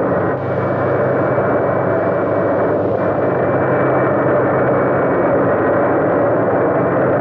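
Jet fighter engine roar, steady and unbroken, with a thin high whine held throughout.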